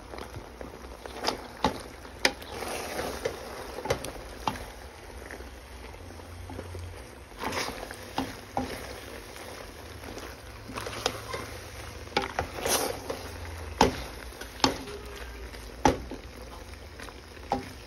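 A utensil stirring creamy pasta in a stainless steel pot: irregular sharp knocks of the utensil against the metal, with wet, sloshing stirring noise in between.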